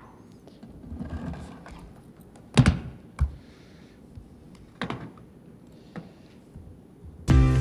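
Scattered clicks and knocks from a laptop being worked by hand at a podium, four sharp ones the loudest. Music starts suddenly near the end.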